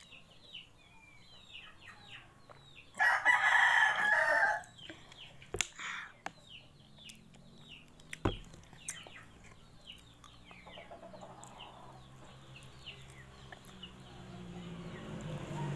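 A rooster crows once, about three seconds in, a loud call lasting under two seconds. Short, high, falling chirps of small birds go on around it, with a couple of sharp clicks.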